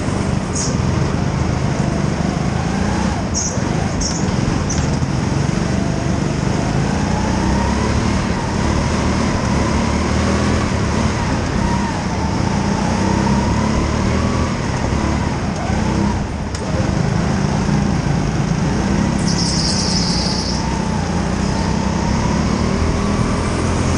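Onboard sound of a racing go-kart at speed: a constant low rumble, with the motor's pitch rising and falling as it speeds up and slows through the corners. There are a few short high squeaks, and a longer one near the end.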